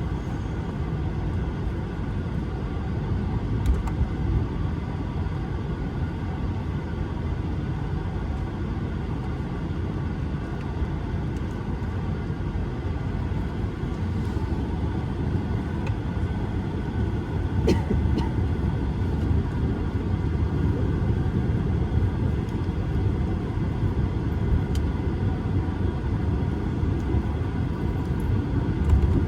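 Airbus A220-300 cabin noise while taxiing: a steady low rumble with a faint hum from the Pratt & Whitney PW1500G geared turbofan engines. A few light clicks and rattles come through, one about halfway through.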